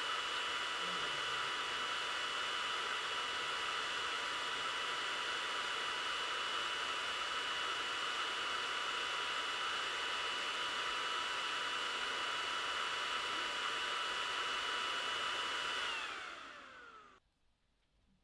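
xTool D1 Pro 20W laser engraver running with its fan: a steady whirring hiss with a high whine. Near the end the whine falls in pitch as the fan spins down, and the sound fades out.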